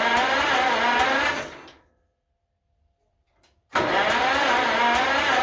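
1948 John Deere M tractor's two-cylinder engine being cranked over on the starter without catching, in two attempts. The first attempt stops about a second and a half in; the second starts near the end after a short silence. The engine is failing to start while its ignition timing is being adjusted.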